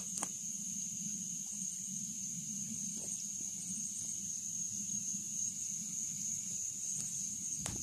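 Steady high-pitched drone of an evening insect chorus, with a low steady hum underneath and a few faint clicks. Near the end come footsteps on the dirt bank.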